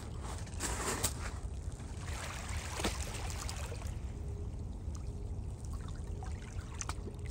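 Shallow water lapping and trickling against a pebbly shoreline, over a steady low rumble, with a couple of brief ticks about one and three seconds in.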